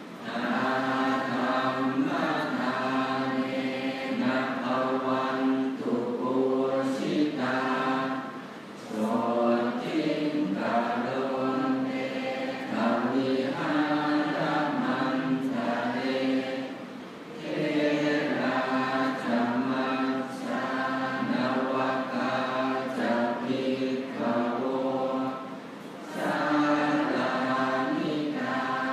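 Thai Buddhist morning chanting (tham wat chao): a group of monks reciting in unison on a steady pitch, pausing briefly for breath three times.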